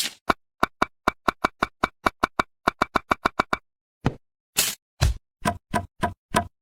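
A quick run of sharp, light taps, about five a second, then after a short pause half a dozen heavier, thuddier knocks.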